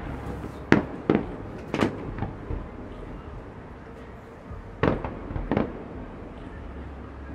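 Aerial fireworks shells bursting: a run of sharp bangs in the first two and a half seconds, a lull, then two more bangs around five seconds in, over a steady low rumble.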